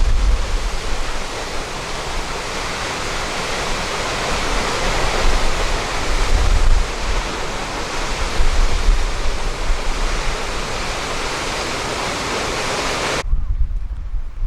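Waterfall rushing in a steady roar of falling water, with wind gusting on the microphone. The water sound cuts off abruptly near the end, leaving only the wind rumble.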